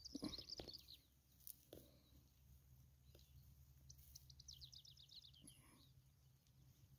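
Faint small-bird song: a quick run of high chirps at the start, and a fast trill of high chirps falling in pitch about four seconds in.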